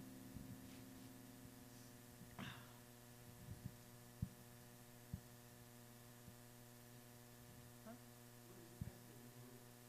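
Near silence: a steady electrical hum from the sound system, with a few faint knocks, the sharpest about four seconds in.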